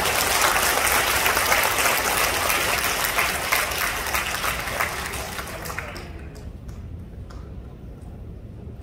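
Audience applauding: dense clapping that dies away about six seconds in, leaving a few scattered claps.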